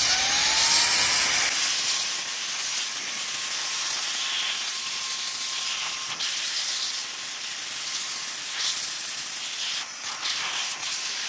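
SEALIGHT cordless mini handheld vacuum in blower mode, blowing air at a keyboard. Its motor whine rises as it spins up in the first second, then settles into a steady rush of air.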